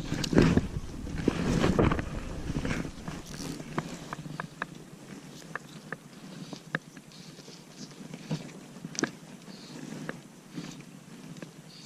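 Fishing gear being handled in a kayak: rustling and rummaging for the first couple of seconds, then a run of small, scattered clicks and taps.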